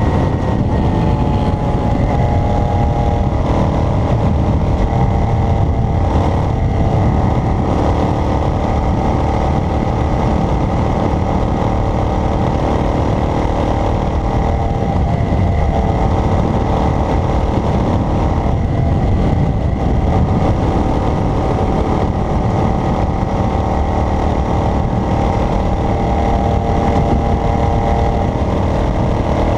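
A car engine running with steady road noise while driving. The engine pitch drops and climbs again a few times, as with gear changes or easing off and speeding up.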